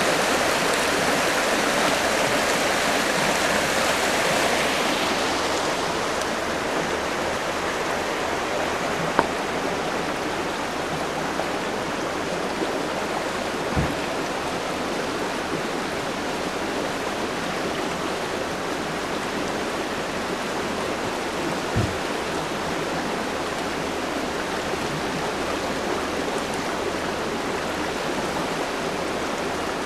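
Flood-swollen river rushing over rocks, a steady rush of water that is louder for the first few seconds, with a few faint knocks.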